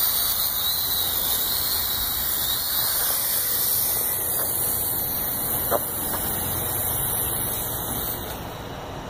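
WLtoys V929 Beetle mini quadcopter's motors and propellers whining as it lifts off from the water. The pitch wavers as the throttle changes, there is a single click a little past the middle, and the whine grows quieter near the end.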